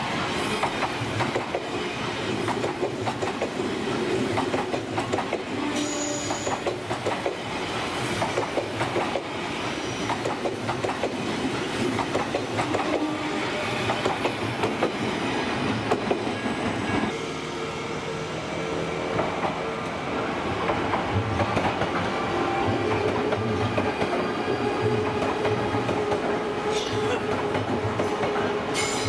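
Odakyu Line electric commuter trains passing over a level crossing, wheels clattering over the rail joints with some wheel squeal.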